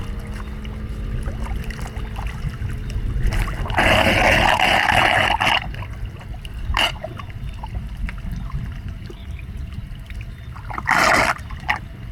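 Floodwater splashing and trickling around a street drain, with a steady low rumble underneath. There is a long loud splash about four seconds in, a sharp knock a little after, and a shorter splash near the end.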